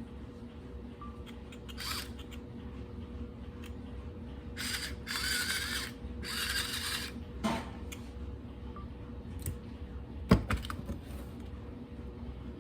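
Kitchen handling noises over a steady low hum: two hissing bursts of about a second each midway, a few light clicks, and one sharp knock near the end, which is the loudest sound.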